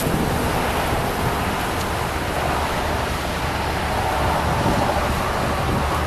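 Steady rushing wind noise on the microphone, with road traffic underneath.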